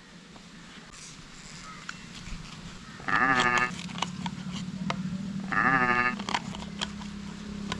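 An animal bleating twice, two short wavering calls a couple of seconds apart, over a low steady hum with faint scattered clicks.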